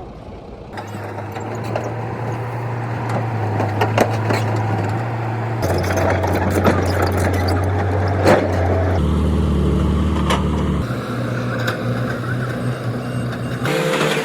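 Heavy diesel earthmoving machinery running with a steady low engine hum and scattered metallic clanks and knocks. The engine note changes abruptly every few seconds.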